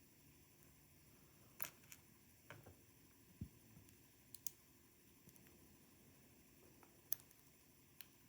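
Faint, scattered clicks and taps of small metal lock parts being handled while driver pins are taken out of a dimple lock's housing: about half a dozen separate clicks, with one duller knock about three and a half seconds in.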